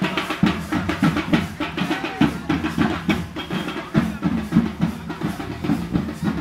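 Fast, loud drumming with music, a steady driving beat of many strokes a second.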